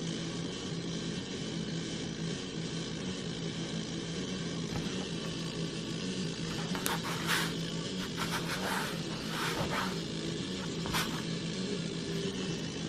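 A hand rubbing and smearing paint across a painted canvas, making several short swishes in the second half, over a steady low hum.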